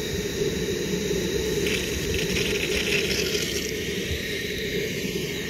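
Steam hissing from a leaking compression nut on a 5-inch gauge model steam locomotive, with a stronger rush of hiss for about two seconds near the middle.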